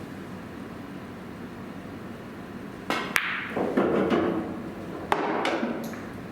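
A pool shot: two sharp clicks of cue tip and billiard balls colliding about three seconds in, then balls rolling and knocking for a second or so, and another sharp ball click about five seconds in followed by more rolling.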